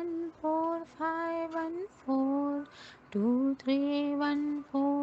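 A woman's voice chanting the number sequence 2314514 in a sing-song, one steady held note per digit-syllable with short gaps between them; the phrase starts over about three seconds in.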